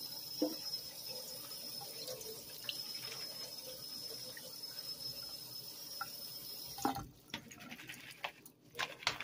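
Kitchen tap running water over snow peas in a plastic colander in a stainless steel sink, a steady rush of water. It shuts off suddenly about seven seconds in, leaving a few light knocks and drips.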